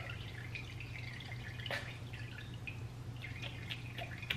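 Water splashing and dripping in a sink basin as a puppy is washed by hand: small irregular splashes, with a sharper splash a little under two seconds in and another near the end. A low steady hum runs underneath.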